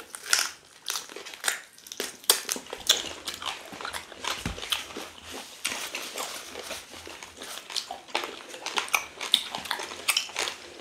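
Two people chewing and smacking their lips close to the microphone while eating meat and fufu by hand: a quick, irregular run of mouth clicks and smacks.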